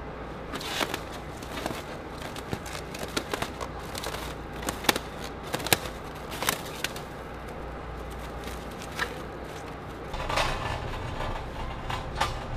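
Black plastic stretch wrap on a cargo pallet crackling and crinkling as it is handled and pulled, a run of sharp irregular crackles over a steady low hum.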